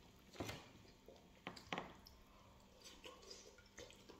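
Faint, short taps and squelches of a metal spoon scooping soft guacamole from a bowl and dropping it onto a flour tortilla, about half a dozen in all.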